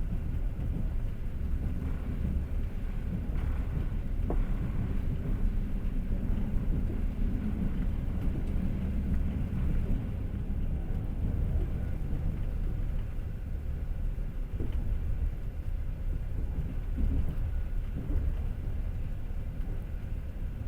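Passenger train running along the track: a steady low rumble of wheels on rails, with a few faint knocks.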